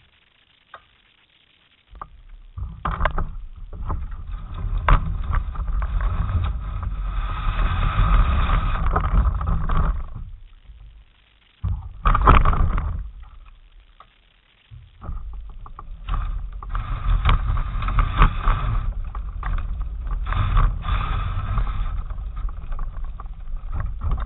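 Two-stroke racing kart engine running close to the microphone in long spells. It cuts out about halfway through, gives a short burst, then runs again.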